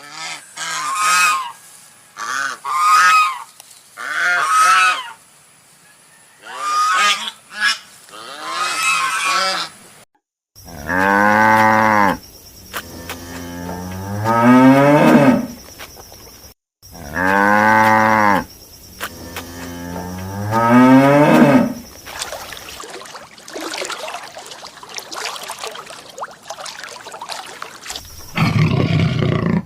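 A goose honking in a string of short calls, then a cow mooing: two long, deep moos that rise in pitch, followed by a stretch of hiss.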